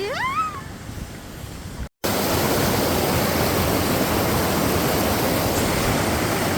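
Waterfall rushing: a steady, even roar of falling water, which gets louder after a brief break about two seconds in.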